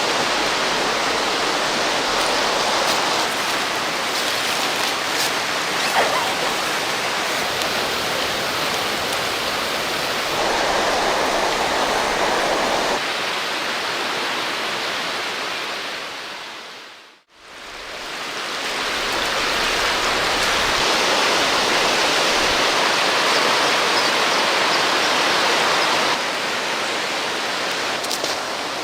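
River water rushing steadily. It fades out to silence a little past halfway through, then fades back in.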